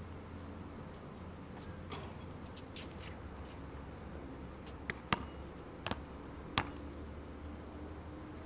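Basketball bouncing on an asphalt court: a handful of sharp, irregular dribble bounces, the loudest clustered around five to seven seconds in, over steady background noise.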